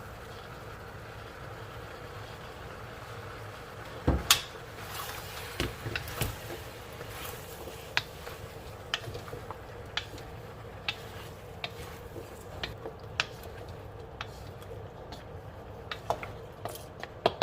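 Cookware clatter about four seconds in, then irregular clinks and taps of a utensil against a cooking pot as vegetables are stirred in.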